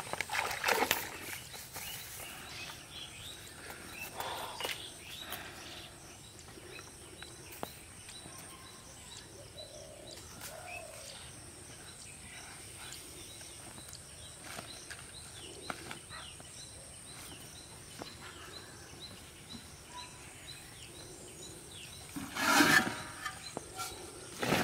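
Quiet rural pond-side ambience with a bird chirping repeatedly, high and faint, about twice a second. Water splashes in the first second as a person wades out of a shallow pond, and a brief louder burst of handling noise comes near the end.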